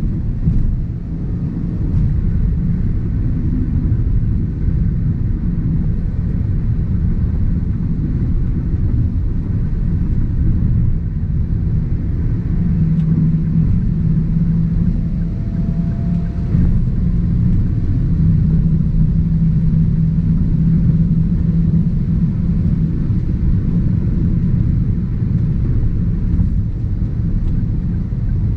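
Cabin noise of a Toyota Avanza 1.3 CVT cruising on a highway: a steady low rumble of tyres, road and engine. A steady engine drone comes up twice in the middle.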